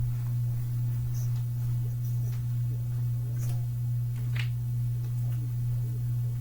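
A steady low hum with a few faint soft ticks.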